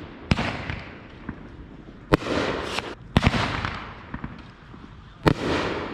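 Fireworks going off: five or six sharp bangs at uneven intervals, two close together a little past the three-second mark. Each bang trails off in a fading hiss.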